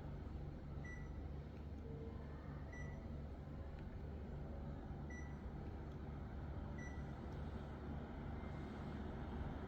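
Panasonic inverter split air conditioner running with a steady low hum and a pulsing drone, while short high beeps sound about five times, a second or two apart.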